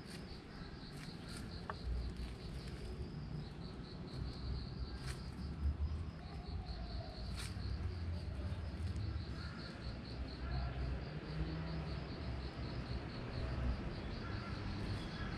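Insects chirping in the grass: a rapid, high pulsing trill that keeps going steadily, over a low background rumble.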